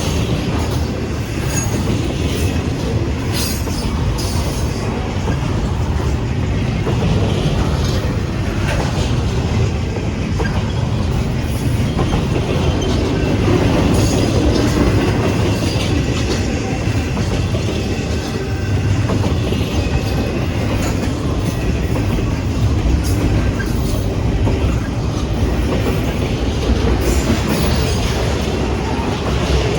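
CSX freight train's cars rolling steadily past over the crossing, wheels clicking over rail joints, with faint wheel squeal.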